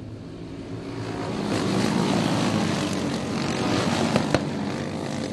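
Several racing go-kart engines running at speed as the karts go by, growing louder over the first two seconds and then holding steady. A couple of short sharp clicks about four seconds in.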